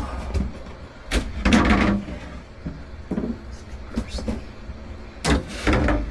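Wooden bed drawers and boards being pulled and shifted: two bouts of scraping and knocking, about a second in and again near the end, with smaller knocks between them, over a steady low hum.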